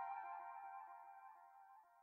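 Background music fading out on a held note, going silent a little over halfway through.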